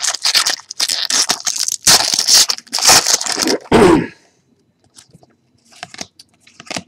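Foil trading-card pack wrapper crinkling and tearing as a pack is ripped open, loud and dense for about three and a half seconds. Then a short throat sound, followed by faint clicks of cards being handled.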